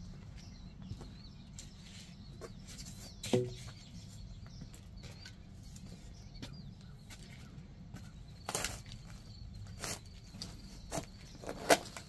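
A spade shovel digging into mulch and soil, several short scraping strikes of the blade in the second half. About three seconds in comes one sharp metallic clank with a brief ring.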